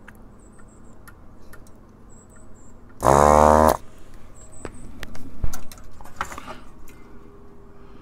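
Desoldering gun's vacuum pump running in one short burst of under a second, about three seconds in, sucking molten solder out of a circuit board's through-hole. Around it are small clicks and taps of the tool on the board, and a sharp knock about five and a half seconds in.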